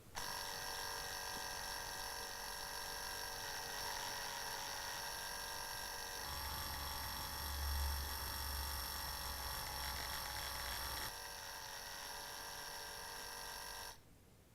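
Dymo LetraTag handheld label maker printing a label, its small motor whirring steadily. A deeper hum joins in the middle, and the whir stops about a second before the end.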